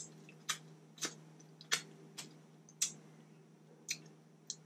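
Close-miked eating sounds: wet mouth smacks while chewing, about eight short sharp clicks spaced irregularly, over a steady low hum.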